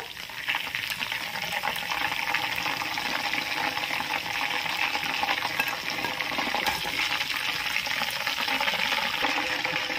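Battered chicken pieces frying in hot oil in a kadai: a steady crackling sizzle, at the end of their first, low-heat fry.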